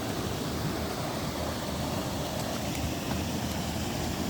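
River water rushing steadily, a continuous even wash of flowing water.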